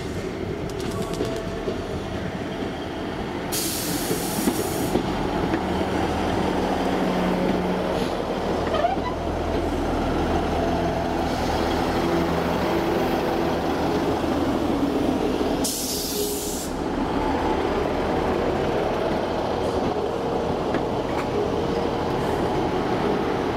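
A diesel train running at the platform with a steady engine hum, broken by two short hisses, about four seconds in and again about sixteen seconds in.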